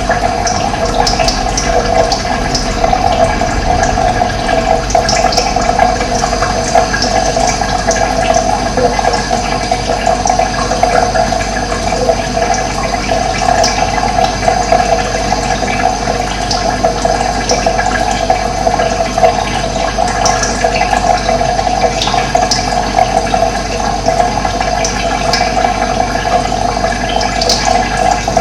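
Steady rush of running water, with short, high bird chirps scattered throughout.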